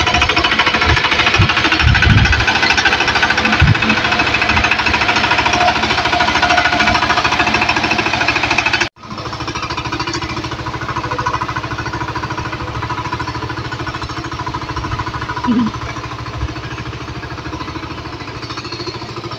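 Single-cylinder diesel engine of a walk-behind power tiller running under load, its cage wheels churning a flooded paddy field. The sound cuts off suddenly about nine seconds in and resumes quieter.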